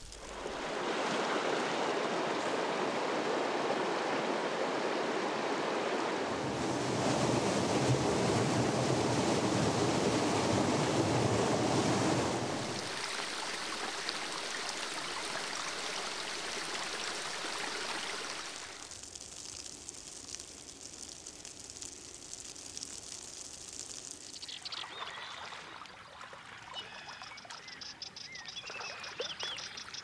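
Melt water running and trickling as a steady rush. It grows fuller about six seconds in, drops back about halfway through, then thins to a faint hiss. Short high chirps sound in the last few seconds.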